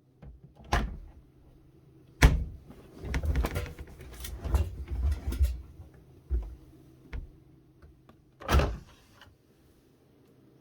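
Knocks and thumps from handling a front-loading washing machine's door and drum. There is a sharp knock about two seconds in, then a run of soft thuds and rustling, and another thump near the end.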